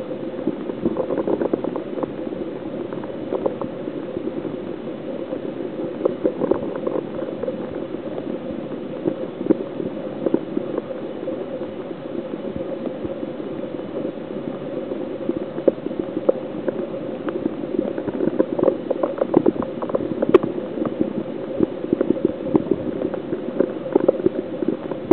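Water moving in an aquarium tank: a steady watery noise with a low hum under it and many small, irregular clicks and pops.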